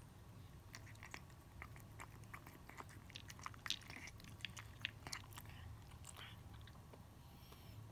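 A cat crunching dry kibble: quick, irregular crunches and clicks that thin out after about six seconds, when it lifts its head from the bowl.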